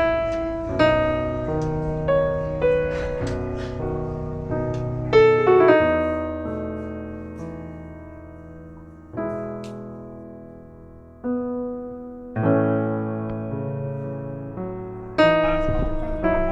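Background piano music: notes and chords are struck and left to ring and fade, with a fresh chord every few seconds.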